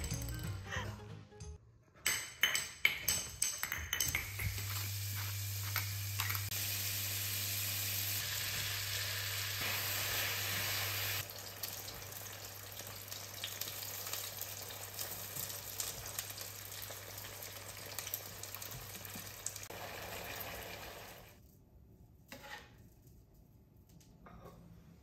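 Chopped cabbage and black bean paste sizzling in a frying pan while a silicone spatula stirs them, making jjajang sauce. A few clacks come first, then a steady sizzle that drops in level about halfway through and dies away near the end, followed by a few soft knocks as the sauce is spooned out.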